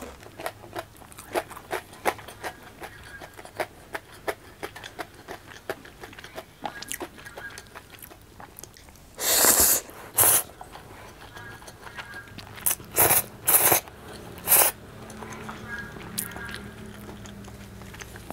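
Close-miked chewing of crunchy fried popcorn chicken, a quick run of small crunches, then loud slurping of spaghetti, one long slurp about halfway through and several shorter slurps a few seconds later.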